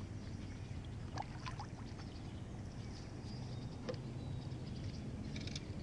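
Kayak paddle strokes on calm water: light splashes and a few separate drops falling from the paddle blades, over a steady low hum.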